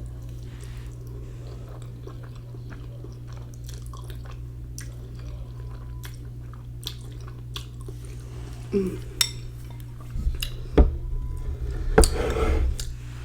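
Close-miked chewing of ramen noodles, with light clicks of chopsticks against the dish. Several louder knocks come in the second half, followed by a short noisy burst near the end.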